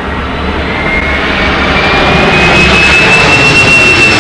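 Jet airliner on final approach to land, coming in low toward the listener: the engines' roar grows steadily louder, with a high whine climbing in pitch above it.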